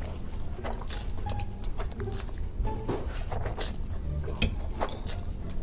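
Close-miked eating sounds: chewing with wet mouth smacks and clicks, coming irregularly several times a second.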